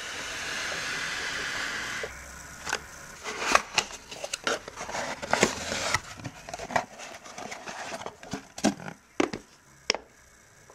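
Hands unboxing: a steady scraping hiss of cardboard rubbing for about two seconds, then irregular rustles, knocks and clicks as a black plastic hard case is handled out of its cardboard box, with a few sharp clicks near the end as fingers work the case's snap latches.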